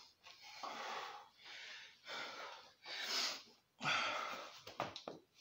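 A man breathing hard through a set of burpees: about five heavy, noisy breaths, roughly one a second, with a few short knocks near the end.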